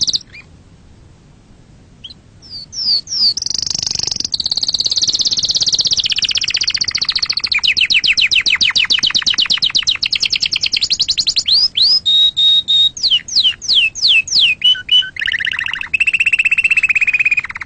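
Domestic canary singing: after a short pause, a long song of fast trills, sweeping whistled notes and a held steady note, closing with a lower rolling trill.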